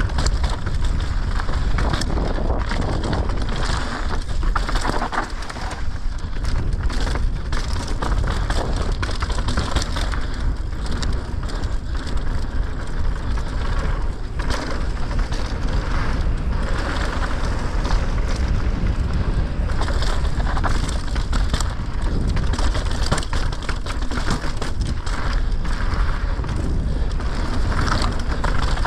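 Mountain bike tyres rolling fast over loose gravel and packed dirt on a downhill trail: a constant crunching rattle with many sharp knocks as the bike hits stones and bumps, over a low wind rumble on the microphone.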